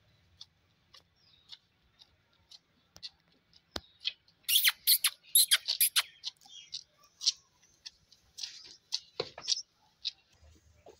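Calf suckling from a goat's teat: irregular wet sucking and smacking clicks, coming thickest in a quick run about halfway through, with an occasional dull knock.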